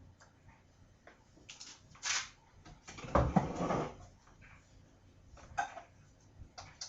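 Handling noises as the air fryer's power cord is plugged in: scattered clicks and rustles, with a loud cluster of knocks and rattles about three seconds in.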